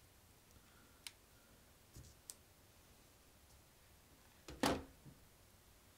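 Faint light clicks of a small plastic drone being handled, then a louder knock about four and a half seconds in.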